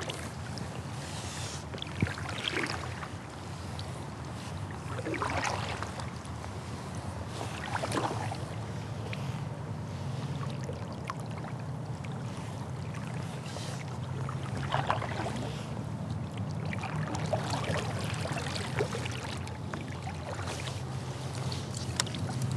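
Kayak paddle strokes splashing in the river every two or three seconds, over a steady low hum.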